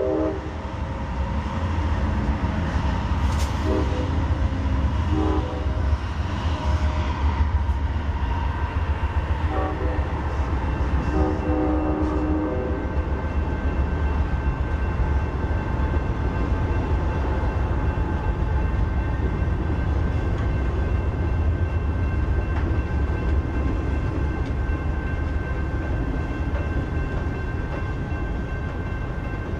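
A passenger train rolling past with a steady low rumble of wheels on rail. Several short train-horn blasts sound in the first half, the last one longer.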